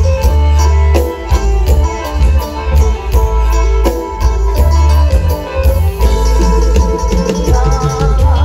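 Live Isan folk music over a stage sound system: a klong king drum show piece, with fast drum strokes over a heavy bass and a melody line above.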